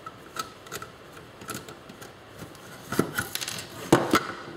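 Scattered clicks and knocks of metal and plastic parts being handled as an old typewriter is taken apart, sparse at first and bunched together from about three seconds in, with the sharpest knock near four seconds.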